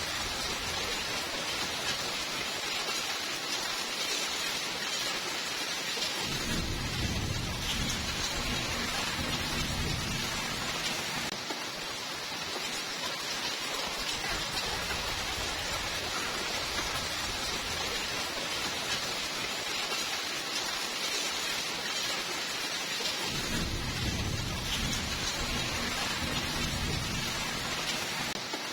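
Steady heavy rainfall hiss, with two long low rumbles of thunder: one starting about six seconds in and lasting around five seconds, another near the end.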